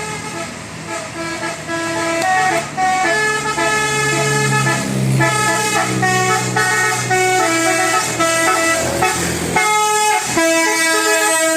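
Bus 'telolet' musical air horns playing a tune: a run of short horn notes stepping between pitches, starting about two seconds in, with a brief break near the end.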